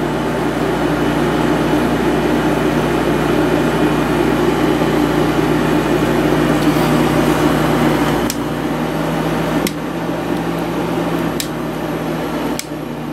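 1989 Whirlpool Coolerator 7,000 BTU window air conditioner running on low: a steady compressor hum under the rush of air from the fan, running well after a cleaned condenser coil and a new capacitor. In the second half the sound drops a little and a few sharp clicks are heard.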